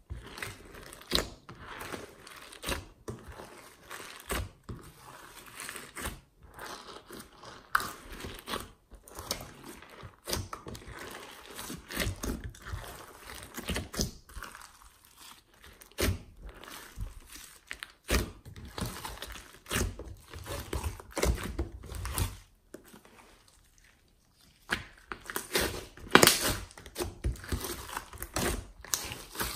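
Hands kneading and stretching glossy slime mixed with clay and glitter, giving off irregular sticky squelches and crackling pops. The handling stops for about two seconds late on, then resumes.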